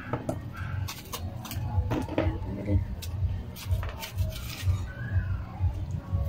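A kitchen knife cutting and scraping the seeds and pith out of ampalaya (bitter gourd) pieces, heard as scattered short clicks and scrapes over a pulsing low rumble.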